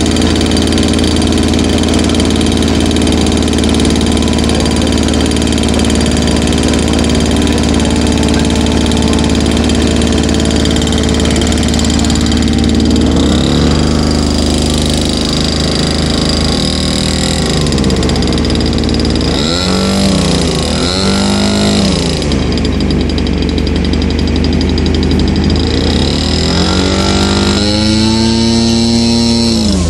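Model aircraft engine running steadily, then opened up several times in the second half, each time its pitch rising and falling again, with a longer high-pitched run near the end.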